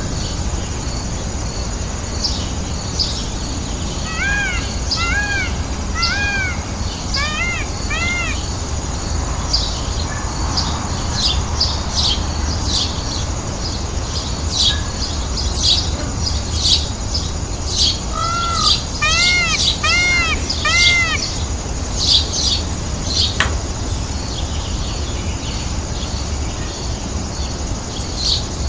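Indian peafowl calling in two runs of short, arched, repeated calls, about two a second: the first a few seconds in, the second about two-thirds of the way through. Small birds chirp throughout over a steady low rumble.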